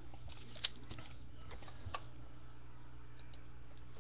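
Trading cards being handled: faint rustles and light clicks, with one sharper click about two-thirds of a second in, over a steady low hum.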